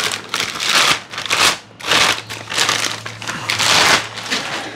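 Packaging being pulled open and handled as coilovers are unboxed: about five loud, noisy rustles in quick succession, over a faint steady low hum.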